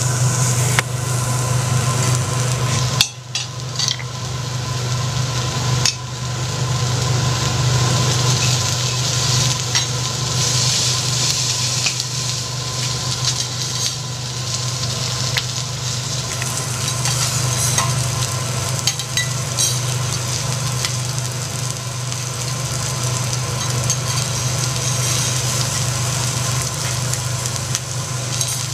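Prawns sizzling on a hot teppanyaki iron griddle, with occasional clicks and scrapes of the chef's metal spatula and knife on the plate, over a steady low hum. The sound drops out briefly about three seconds in.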